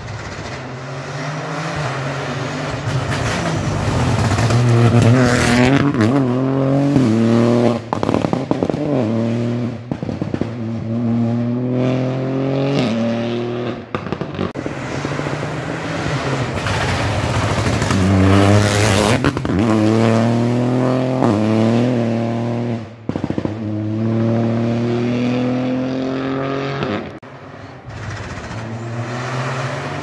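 Rally car engine driven hard on a special stage, revving up through the gears: the pitch climbs, drops at each gear change and climbs again, with several sudden short cut-offs as the throttle is lifted.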